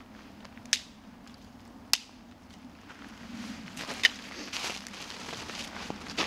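Small campfire of wet oak crackling: four sharp pops about one to two seconds apart, with a soft hiss from about four seconds in as the wet wood spits water.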